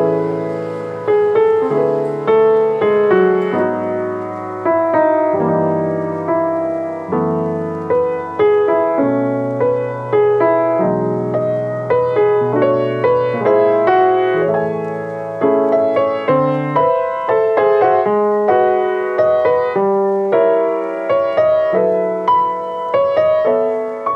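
Background piano music: a melody of struck notes, each fading out, over held low chords.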